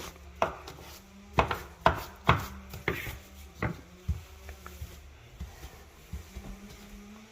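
A series of sharp knocks and clatters of hard household items being handled and set or knocked down in a kitchen, about eight in the first four seconds, then a few fainter taps.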